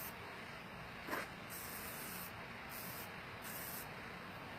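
Aerosol spray paint can hissing in short bursts, switching on and off several times as letters are sprayed. A brief knock about a second in.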